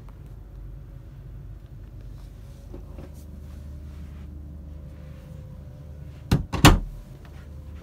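A wooden cabin door being shut: two knocks about half a second apart, the second louder, over a steady low hum.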